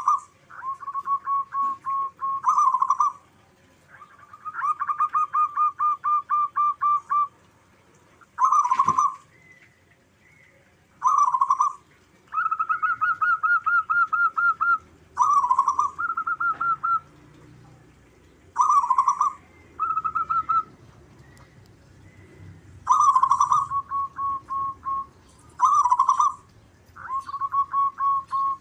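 Zebra doves (perkutut) cooing: repeated phrases, each a loud opening coo followed by a fast run of short staccato coos, about seven or eight a second. The phrases come at slightly different pitches as birds answer one another in turn.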